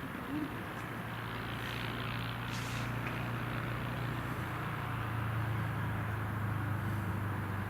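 A Reims/Cessna F150L light plane's four-cylinder Continental O-200 piston engine running with a steady drone as it approaches to land, growing slightly louder.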